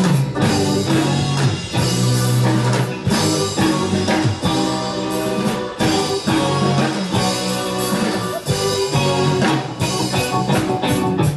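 Reggae band playing an instrumental passage on drum kit, electric guitars and bass guitar, with a steady beat.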